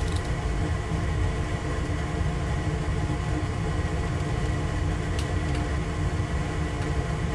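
Steady low rumble with a constant machine hum in a small room, like an air conditioner or fan running, with one light click about five seconds in.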